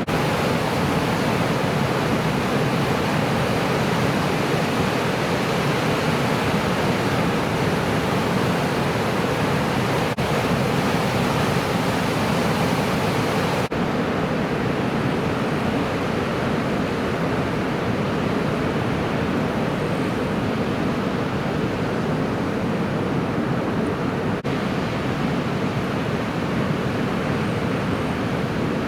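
Steady rush of breaking ocean surf after a typhoon, an even wash of noise with no pauses beyond three very brief dips.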